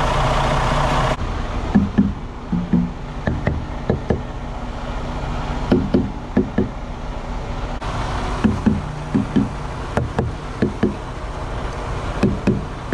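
Semi truck's diesel engine idling steadily, louder for the first second or so, with a string of short knocks coming in twos and threes over it.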